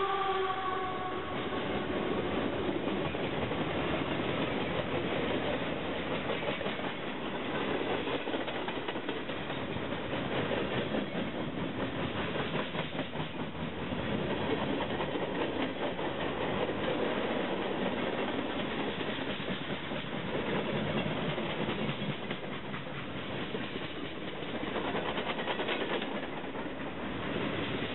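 CSX freight train rolling past close by: the trailing diesel locomotives, then a long string of freight cars, with a steady rumble and the clatter of wheels over the rails. A locomotive horn note dies away in the first second.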